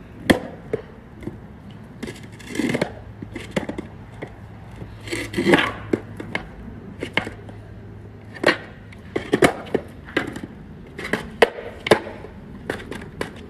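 Skateboard knocking and scraping on concrete steps as the board is rocked on the step edge: a string of sharp, irregular clacks.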